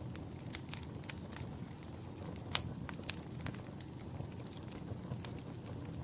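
Wood fire crackling in a fireplace: a steady low rumble of flames with frequent sharp pops and snaps, the loudest about two and a half seconds in.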